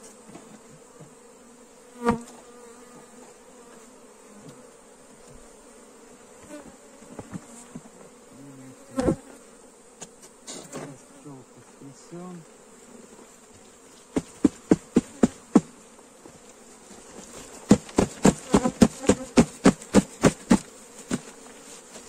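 Honeybee swarm humming steadily, with single sharp knocks about two seconds and nine seconds in. Then come two runs of rapid knocks, about five a second, one before and one through most of the last third: the cardboard swarm trap being knocked to shake the bees down into the hive.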